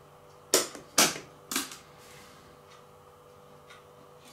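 Three sharp mechanical clicks in quick succession, about half a second apart, over a faint steady hum.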